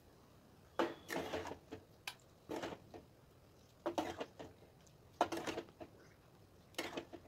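A serving spoon scooping thick potato and soya chunk curry out of a steel pan into a steel bowl: a handful of short metal scrapes and clinks, spaced unevenly.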